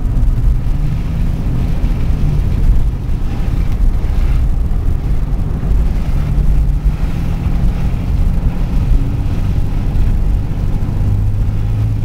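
Car engine and road noise from inside the cabin while driving. There is a steady low engine hum whose note drifts up and down a little, with a drop in pitch near the end.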